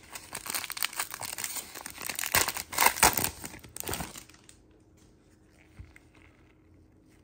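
Foil wrapper of a Donruss football trading-card pack being torn open and crinkled: a dense crackling for about four seconds, loudest just before the three-second mark, then it stops.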